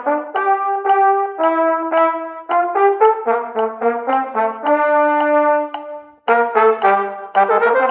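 A small group of brass players playing a busy marching-band piece slower than full tempo: quick runs of short notes over held lower notes, with a brief break about six seconds in.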